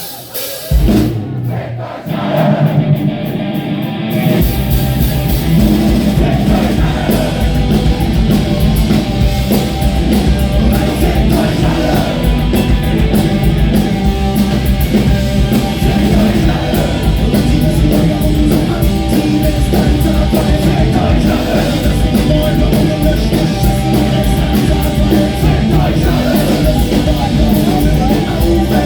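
Punk rock band playing live with singing. After a few separate opening hits, the full band comes in about four seconds in and plays loudly and steadily.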